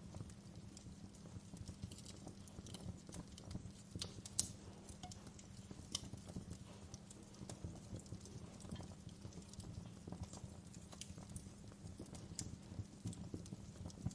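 Fireplace fire crackling: irregular sharp pops and snaps over a low steady rumble, with the loudest pop about four seconds in.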